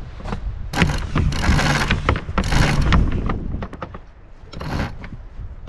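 Sailing deck hardware on a Corsair F-27 trimaran being worked as lines are handled, in four mechanical spells of under a second each over a low rumble of wind and water.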